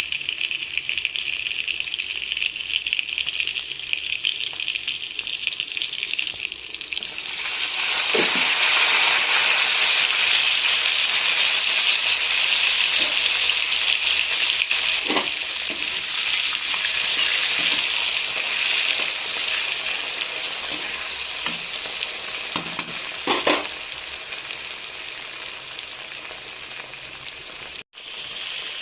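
Chicken pieces sizzling as they fry in a pan. The sizzle grows suddenly louder and fuller about seven seconds in, with a few short knocks as they are stirred.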